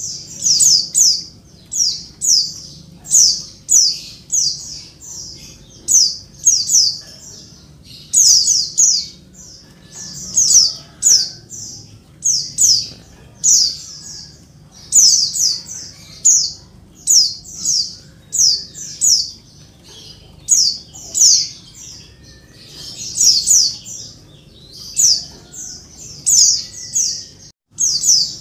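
Female white-eye (pleci) calling noisily to a male: rapid clusters of three to five short, high, downward-slurred chirps, repeated about once a second.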